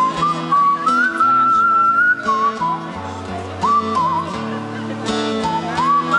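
A tune whistled over a live band, with acoustic guitar strumming underneath: a single clear whistled line that slides up and down in pitch, held in long notes.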